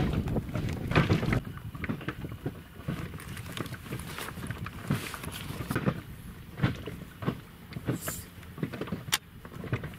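Small waves lapping and slapping against the side of an inflatable boat, as irregular short splashes, with wind buffeting the microphone for about the first second and a half.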